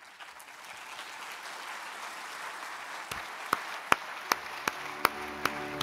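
Audience applauding, building up after the start, with single sharp claps standing out close by about two or three times a second in the second half.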